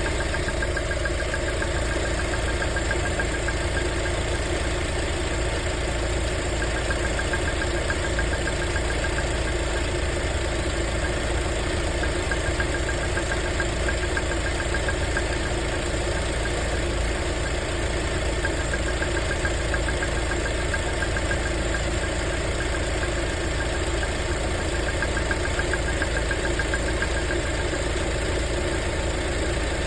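Lada Vesta petrol engine idling steadily, with a fast, light, regular knock over the running. The owner takes the knock for the exhaust camshaft.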